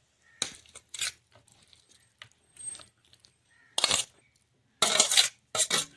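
Metal spoon scraping and clinking against a steel bowl as diced potato chaat is scooped out onto a plate. It comes in several short bursts, the loudest and longest near the end.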